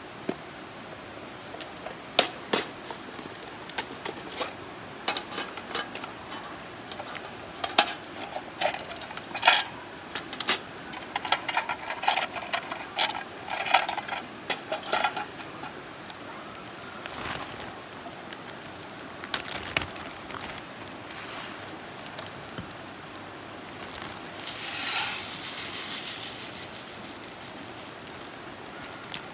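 Camp cookware handled: a wire rack and a metal mess tin clicking and clinking, some strikes ringing briefly, then dry rice poured from a plastic bag into the mess tin with a short hissing rush near the end.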